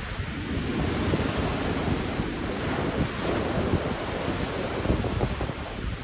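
Small waves breaking and washing up onto a sand-and-pebble shore, with gusts of wind buffeting the microphone.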